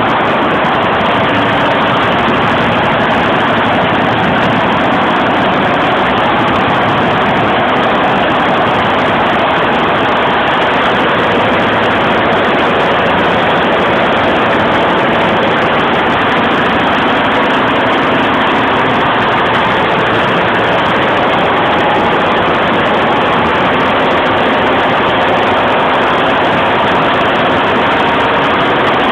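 Golden Lion computerized embroidery machine running steadily at 850 RPM.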